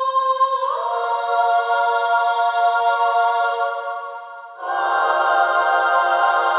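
Female choir singing a cappella in sustained notes: one held pitch opens out into a chord under a second in, the chord fades about four seconds in, and a fuller chord reaching lower enters just after.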